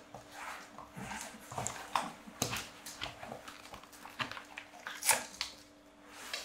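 Staffordshire bull terrier puppy playing on a laminate floor: irregular clicks and scuffs with short puppy noises. A single sharp click comes right at the end.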